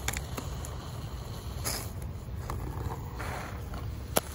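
Can of Great Stuff window-and-door spray foam dispensing through its straw into a gap in the frame: a short hiss, then a longer softer hissing sputter as the foam comes out, with a few sharp clicks, the loudest near the end.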